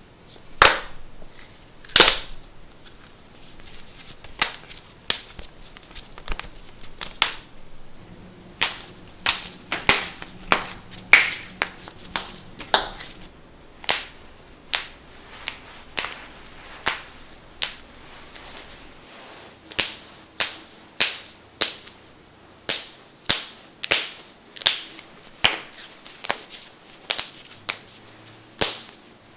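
Human finger knuckles cracking: a long run of sharp pops at irregular spacing, often several in quick succession.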